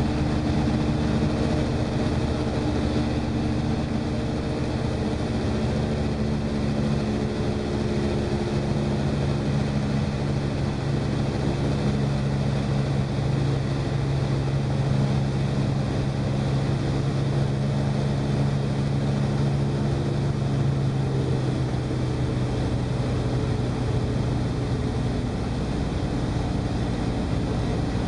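Seamax light amphibious aircraft's piston engine and propeller droning steadily in flight, heard from inside the cockpit, the pitch shifting slightly about eight seconds in.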